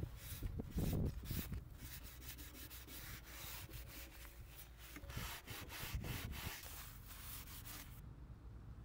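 Paper towel rubbed and scrubbed over a circular saw's metal base plate, wiping red spray paint off with acetone so it stays only in the stamped scale numbers. It is an irregular scratchy rubbing that stops near the end.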